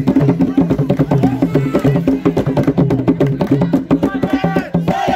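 Fast hand drumming on a tall wooden drum with a hide head, a dense run of sharp strokes. About four seconds in, voices call out over the drumming.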